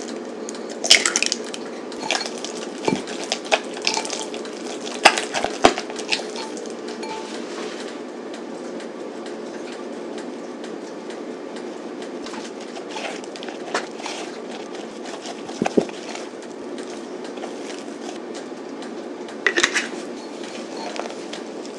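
Fork and spatula clinking and scraping against a glass mixing bowl while an egg and flour are mixed into mashed sweet potato. The clicks come in clusters, busiest in the first few seconds and again near the end, over a steady low hum.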